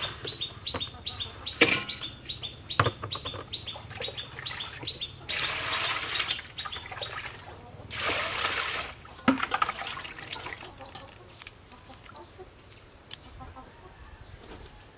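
Water poured from a plastic dipper into a steel basin in two pours of a second or two each, near the middle. Before them comes a run of light clicks and taps.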